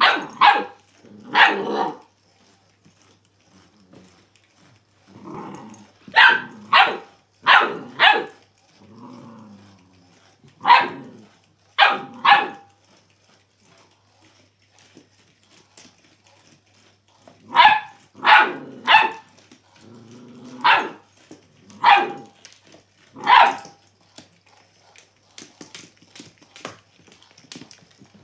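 Eight-week-old Doberman puppy barking: about fifteen short, sharp barks in ones, twos and threes with pauses between, and a few quieter low growls in the gaps.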